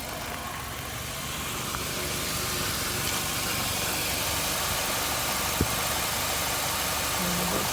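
2016 Nissan Versa's HR16DE 1.6-litre four-cylinder engine running, getting louder about two seconds in and then holding steady, with one sharp click near the end. The engine is being checked for the knocking at certain RPM that owners report on the HR16DE.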